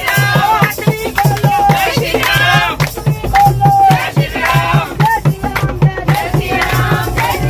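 Hindu devotional bhajan sung with hand claps and a steady drum beat about three times a second.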